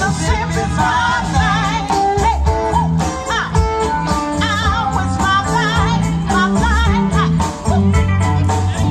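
Live blues band playing a slow, soulful song, with bass, drums and guitar under a sung lead vocal that wavers in pitch on held notes.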